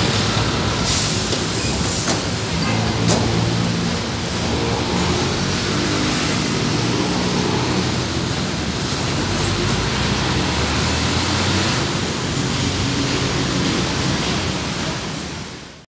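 City bus engine running close by as the bus moves past, over steady road traffic. The sound fades out just before the end.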